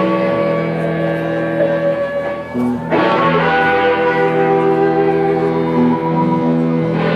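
Music led by guitar, playing held chords that change every second or two, with a fresh chord struck sharply about three seconds in.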